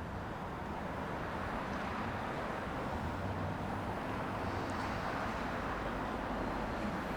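Steady background noise with a low hum, with no distinct events: ambient room or outdoor rumble.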